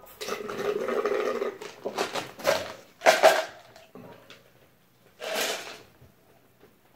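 Straw slurping the last of a soft drink from the bottom of an ice-filled paper cup, then ice shifting and rattling in several short noisy bursts as the cup is tipped up to the mouth. The loudest burst comes about three seconds in.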